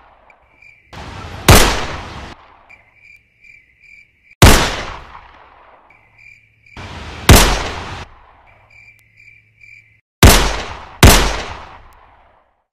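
Pistol gunshots, five in all: three about three seconds apart, then two close together less than a second apart, each fading in a long tail. A high, pulsing chirp fills the gaps between shots.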